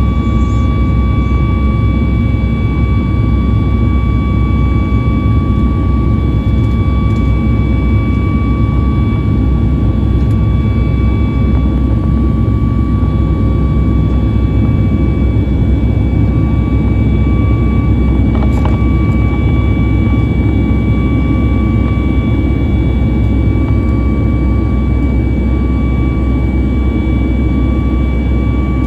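Boeing 737 MAX 8's CFM LEAP-1B turbofan engines at climb thrust, heard from the cabin over the wing: a loud, steady, deep rumble with a steady high-pitched whine on top.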